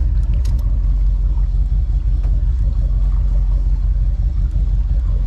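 Charter fishing boat's engine running steadily at trolling speed, a constant low drone.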